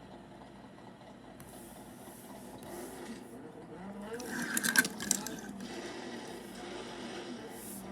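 Small electric motor of a toy car buzzing steadily, growing louder to a peak about halfway through with a quick cluster of clicks, then easing off.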